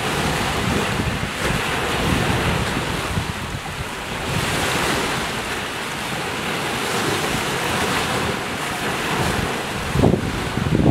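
Small waves lapping and washing onto the shore at the water's edge, with a louder wash about four seconds in. Wind buffets the microphone, with stronger gusts near the end.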